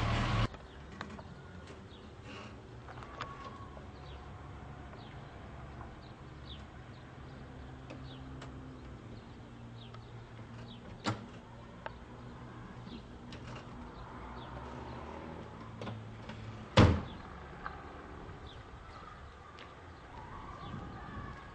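Old Mercedes-Benz saloon's car door shut with a single loud thud about seventeen seconds in, after a sharper click at about eleven seconds. Underneath are a low steady hum and faint bird chirps, and a louder sound cuts off half a second in.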